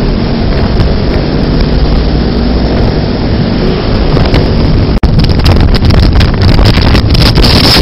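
Steady engine and road noise from a moving vehicle. After a cut about five seconds in, louder wind buffeting the microphone over the road noise.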